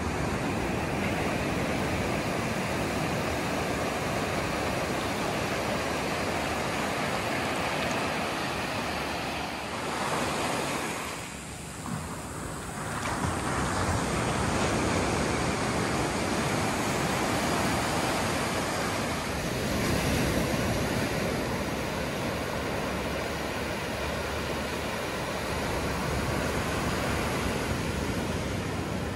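Ocean surf washing up a sandy beach: a steady rush of small breaking waves that dips briefly about eleven seconds in, then swells again.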